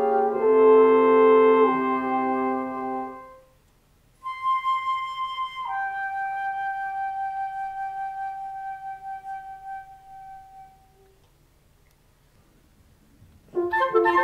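Woodwind quintet of flute, oboe, clarinet, bassoon and French horn holding a chord that fades away, then, after a brief pause, a solo flute plays a long high note that steps down to a lower one held for about five seconds. After another pause the ensemble comes back in with quick notes near the end.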